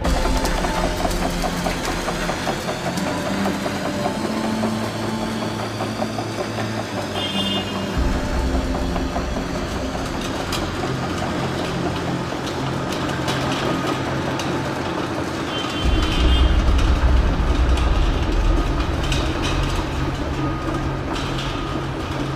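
Diesel engine of a heavy machine, likely an excavator, running steadily. Its low rumble steps up louder about eight seconds in and again about sixteen seconds in.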